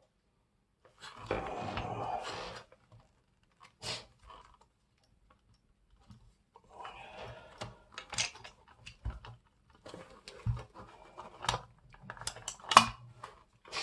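Hands working tight push-on wire connectors off a Mira electric shower's solenoid valve: scattered plastic clicks, scrapes and rustling, with a sharp click near the end.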